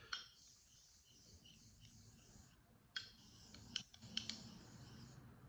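A few light, sharp clicks and knocks of a Japanese natural honing stone being turned around and set back down, most of them bunched together past the middle.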